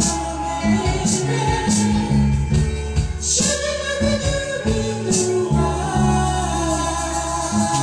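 Soul music recording in its introduction, before the lead vocal: a stepping bass line and drums with cymbal strokes under held, wordless vocal harmonies.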